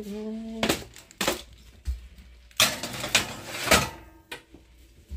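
A series of sharp clanks and knocks as a Maytag electric range's oven door is opened and its metal rack and foil-covered pans are disturbed, the loudest about two and a half to four seconds in.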